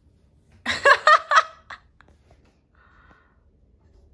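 A short, high-pitched burst of laughter, four quick 'ha' pulses, about half a second in.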